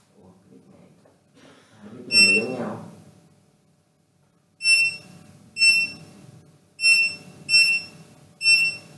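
An HMI touchscreen's key-press buzzer gives short, identical high beeps as its on-screen buttons are tapped. There is one beep about two seconds in with a brief rustle under it, then five beeps about a second apart near the end.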